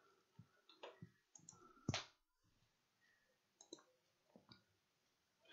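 Faint, scattered computer mouse clicks, a handful over a few seconds, the sharpest about two seconds in.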